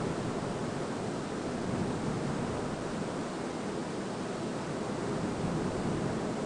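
Steady wind ambience: a continuous low rushing with no gusts or breaks.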